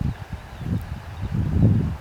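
Wind buffeting the microphone: irregular low rumbling gusts that start right at the beginning and grow stronger about halfway through.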